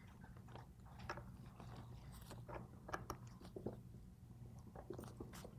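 Faint, scattered clicks and light scrapes of small steel parts being handled at a Hardinge lathe cross slide, over a steady low hum.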